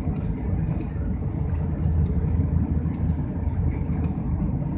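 Steady low drone of a jet airliner in flight, engines and rushing air heard from inside the cabin.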